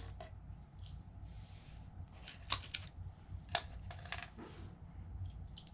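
Scattered light clicks and taps of small plastic parts and tiny screws being handled while a drone remote controller is put back together, over a low steady hum.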